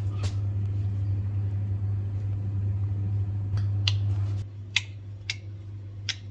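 Biasi gas boiler running with a steady low hum that cuts off about four seconds in, with several sharp clicks around and after it.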